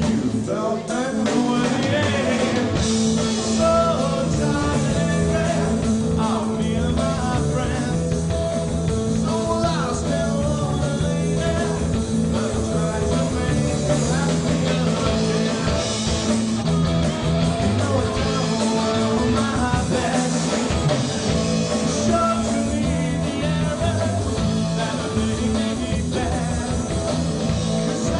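Rock song played by a band: guitars over a repeating bass line, with a voice singing.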